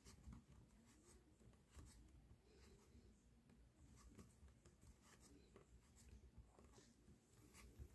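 Near silence with faint, irregular soft ticks and rustles of a crochet hook working terlenca thread into stitches.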